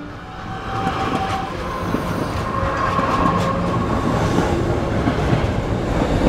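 Electric train running along the track: a steady rumble and rattle of wheels on rails, with a faint whine over it in the first few seconds.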